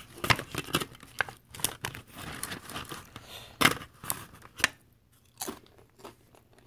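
Tortilla chips crackling and a foil tray crinkling as fingers pick through a tray of nachos: a run of sharp crackles that thins out after about five seconds.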